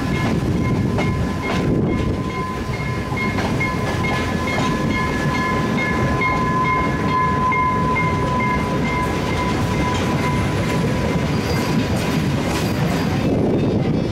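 Train behind Sri Lanka Railways M5C locomotive 782 running along the line, a steady rumble with rail clatter. A steady high tone sounds over it for the first ten seconds or so, then fades.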